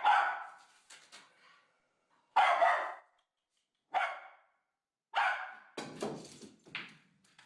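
A dog barking: about five single barks, spaced unevenly over several seconds with silence between them.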